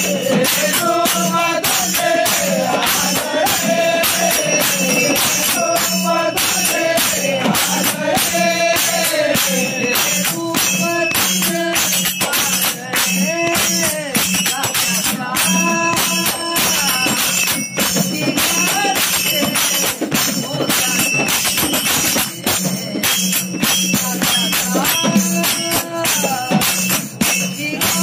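Marathi devotional bhajan to Vitthal sung by a group of voices, over fast, steady jingling percussion and a steady low drone.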